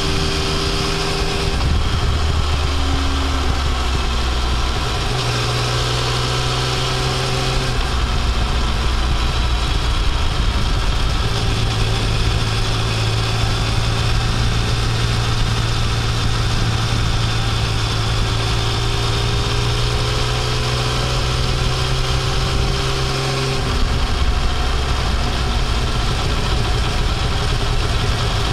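Yamaha Tracer 900's inline three-cylinder engine pulling the motorcycle up a mountain pass road. Its note holds a steady pitch for stretches and steps to a new pitch about five times, with a constant rush of wind and road noise over it.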